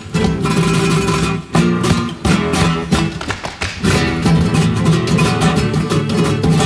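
Three Spanish acoustic guitars playing flamenco together in rapid strummed and picked strokes. The playing breaks off briefly a few times in the first four seconds, then runs on unbroken.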